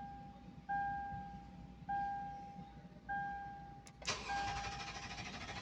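Lexus LX 570 dashboard warning chime ringing and fading about every second, four times, then about four seconds in the starter begins cranking the 5.7-litre V8, which turns over but does not catch: a no-start that the mechanic traces to a faulty EFI relay circuit.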